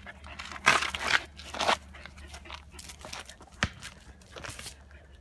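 A small dog biting and tearing at a worn, shredding football: several short crinkling, tearing bursts, with a sharp click about two-thirds of the way through.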